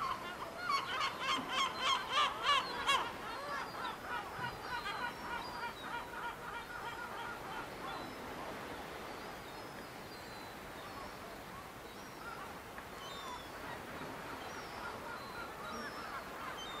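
Gulls calling: a fast run of repeated calls, loudest about two to three seconds in, trailing off into scattered fainter calls.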